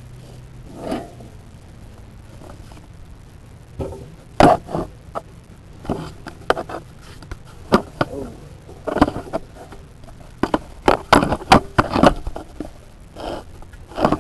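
Lawnmower engine being pull-started with a rope wrapped around a pulley, failing to start. Sharp clanks and knocks come in several bursts from about four seconds in.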